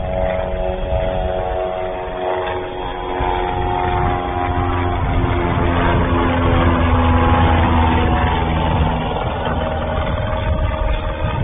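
Light propeller airplane's piston engine at takeoff power, climbing out overhead: a steady droning hum that swells to its loudest about two-thirds of the way through and then eases.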